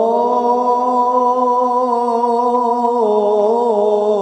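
A male qari's voice reciting the Qur'an in melodic tilawah style, holding one long note at a steady pitch, then breaking into quick wavering melodic turns about three seconds in.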